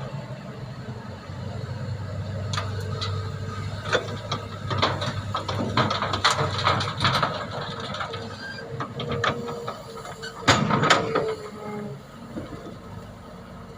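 Excavator at work: the engine running steadily under a string of metallic knocks and clanks, with a thin squeal, the loudest clatter about ten and a half seconds in.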